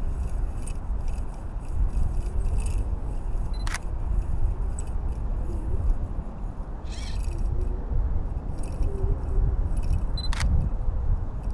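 Wind buffeting the microphone of a camera carried aloft by a kite, a steady low rumble. A short high beep and a sharp click sound together twice, a little under 4 seconds in and again near the end.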